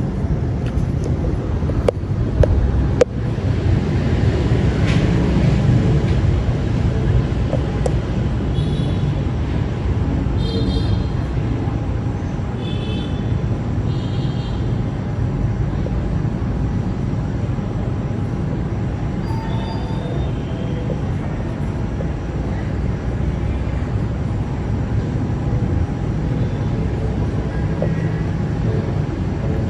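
Thunderstorm: a continuous low rolling rumble of thunder that swells a few seconds in, with a couple of sharp cracks near the start.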